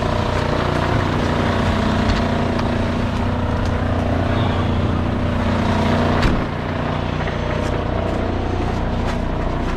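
Crane truck's diesel engine running steadily, with a sharp click about six seconds in after which it runs a little quieter.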